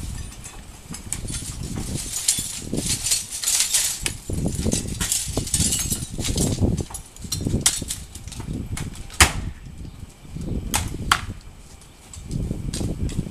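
Irregular knocks, clicks and scraping from hand work on a window frame during a window replacement, over an uneven low rumble, with a few louder sharp clicks in the second half.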